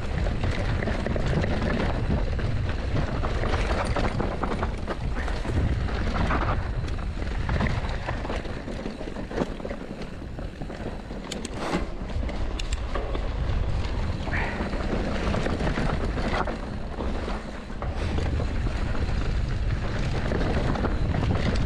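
Enduro mountain bike descending a rough trail: tyres rolling over dirt and stones, with frequent knocks and rattles from the bike, and wind on the microphone.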